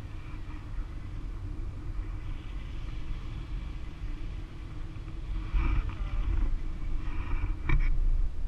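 Wind buffeting the camera's microphone during a paraglider flight: a steady low rumble, with a few faint rustles and a sharp click near the end.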